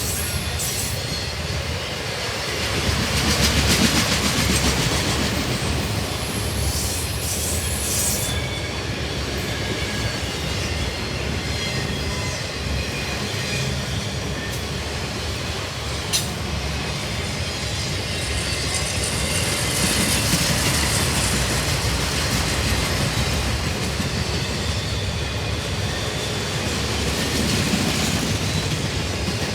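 Freight train cars rolling past: a steady rumble and clatter of wheels on the rails, swelling and easing, with a brief high wheel squeal about seven to eight seconds in and a single sharp clack about halfway through.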